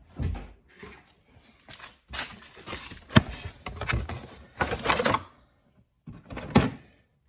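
Rustling and clattering of packaging as a new cabin air filter is taken out of its box. There are irregular bursts, the busiest between about two and five seconds in, and a shorter one near the end.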